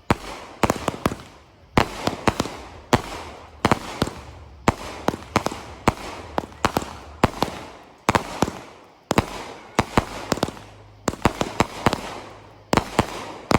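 Fireworks going off: a sharp bang about once a second, each followed by a fading patter of crackling pops, a dozen or so in all.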